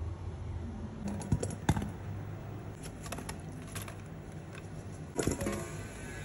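Raw chopped vegetables tipped into a stainless steel pot, the pieces knocking against the metal and each other in a scatter of clicks and thuds. The loudest knocks come about a second and a half in and again about five seconds in.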